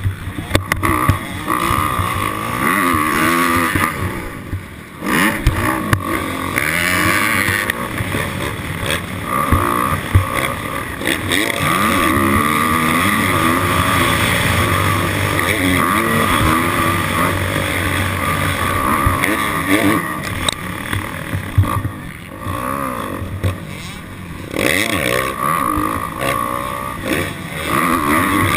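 Dirt bike engine running on a motocross track, revving up and down repeatedly as the throttle is worked and gears change.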